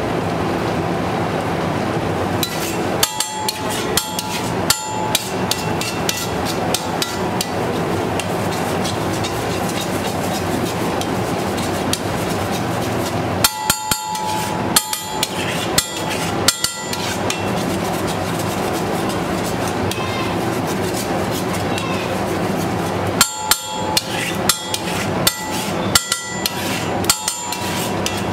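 A long metal spatula-knife clacking and scraping on a flat iron griddle as egg mixture is spread. The sharp clicks come in quick clusters a few seconds in, around the middle and again near the end, over a steady background noise.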